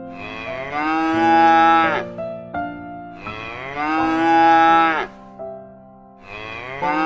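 Cow mooing: two long moos and a third beginning near the end, each lasting about a second and a half, over a soft keyboard tune.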